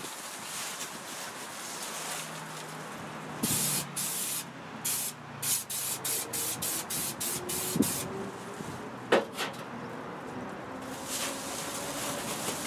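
Aerosol spray adhesive hissing from a can, one longer spray followed by a quick run of about ten short squirts, as it is sprayed on to foil insulation; then a couple of sharp clicks.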